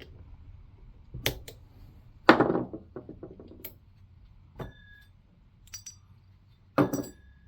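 Hand tools and small metal parts clinking and knocking on a workbench while a chainsaw is being taken apart: about six sharp knocks, the loudest about two seconds in, a few of them leaving a brief metallic ring.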